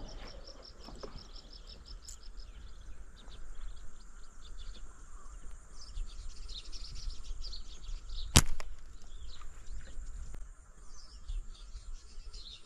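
Small birds chirping, with a quick run of high chirps at first and scattered calls after. One sharp snap about eight seconds in.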